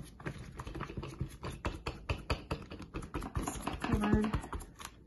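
A brush scrubbing white glue across paper laid over cardboard: a fast, uneven run of short scratchy strokes, several a second.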